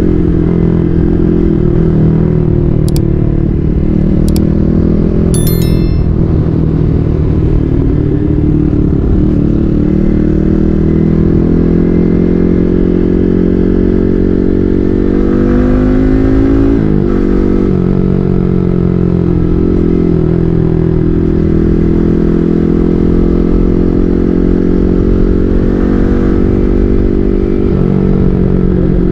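Yamaha MT-15's single-cylinder engine running through an SC Project full-system exhaust, mostly at a steady note. Its pitch rises briefly about halfway through and then drops sharply. A few sharp clicks sound in the first several seconds.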